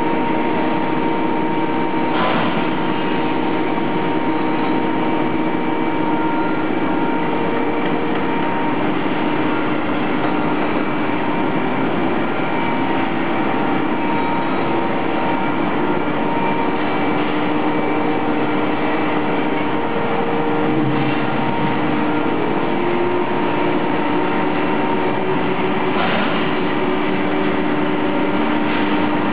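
Steel tube mill production line running: steady machine noise with several humming tones from the drives and rollers, and a faint click about two seconds in and again near the end.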